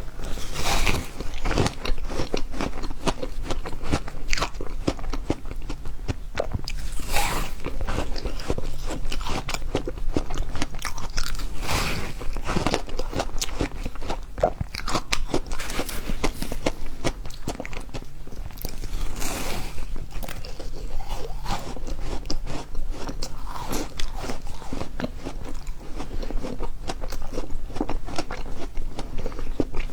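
Refrozen ice being bitten and chewed: a steady stream of crackling crunches, with louder bites every second or few.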